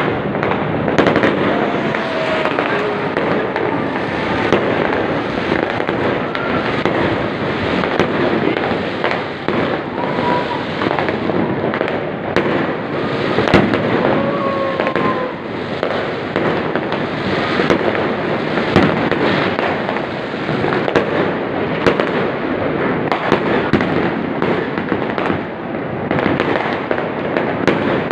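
Many fireworks and firecrackers bursting across the city at once: a dense, unbroken crackle and popping, with sharper single bangs standing out now and then.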